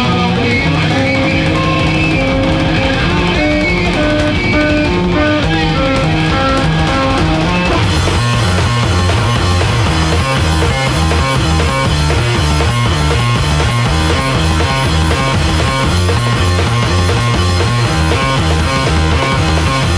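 Noise-rock duo playing live: a heavily distorted bass guitar and a drum kit. For the first eight seconds a stepping bass riff leads with lighter drums; then the full kit crashes in with a dense cymbal wash over a fast, repeating low riff.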